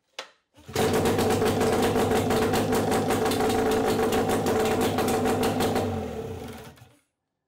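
Yamaha 25D outboard's two-cylinder two-stroke engine running steadily with a fast, even beat. It comes in abruptly about a second in, then winds down and stops near the end.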